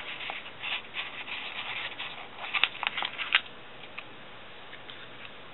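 Paper rubbing and rustling as a sticker sheet is handled, with a few sharp ticks between about two and a half and three and a half seconds in; the handling stops about four seconds in.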